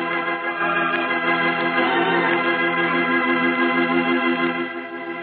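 A single held organ chord with a regular pulsing tremolo: a musical sting closing the scene of a radio drama.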